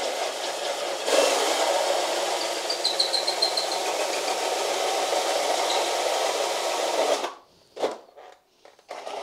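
Cordless drill with a hole saw cutting through a fibreglass dashboard panel, a steady grinding rasp over the motor's whine. The drill stops about seven seconds in, gives one short burst, then starts cutting again near the end.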